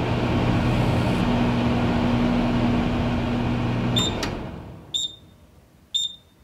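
Microwave oven running with a steady hum, which stops about four seconds in, followed by three short high beeps about a second apart signalling the end of the cycle.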